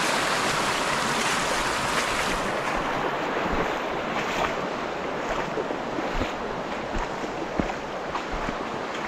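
Shallow river rushing over a stony riffle, a steady wash of water that thins a little after about two and a half seconds. Scattered short knocks and small splashes run through the second half.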